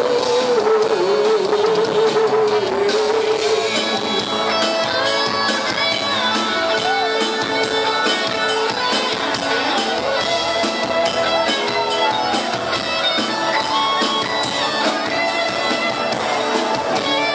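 Live rock band playing an instrumental passage through the PA: electric guitars, bass, keyboard and drums. A sustained lead note bends and wavers in the first few seconds.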